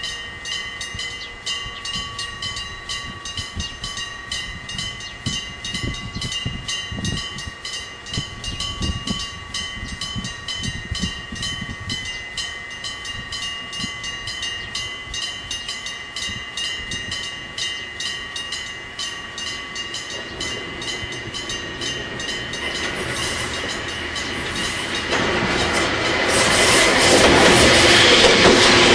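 Electric striker bell of an old-style Japanese level crossing ringing in rapid, even strokes. From about two-thirds of the way in, a Hokuriku Railroad train approaches, and its wheel and running noise grows loud near the end as it passes over the crossing.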